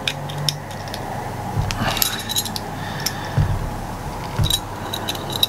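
Needle-nose pliers twisting stiff steel wire into a loop, with scattered small metallic clicks and clinks of metal against metal and a few dull bumps of handling.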